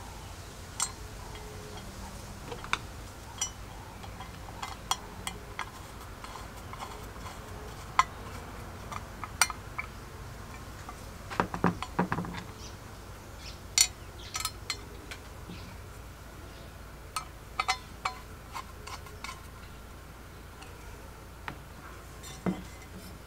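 Light metallic clicks and taps at irregular intervals as the painted metal base plate of a GEC telephone extension bell and small metal parts are handled, with a quick cluster of clinks about halfway through.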